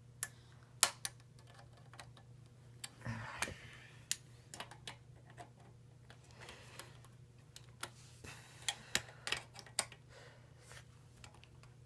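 Irregular light clicks and metallic taps of a screwdriver turning a screw in a stack of steel electrical boxes, with the wiring being handled, over a low steady hum.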